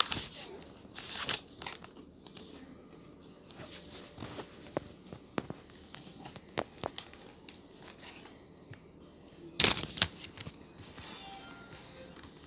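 Intermittent rustling and crinkling of paper pages being handled, with scattered small clicks and knocks and a louder rustle at the start and again about ten seconds in.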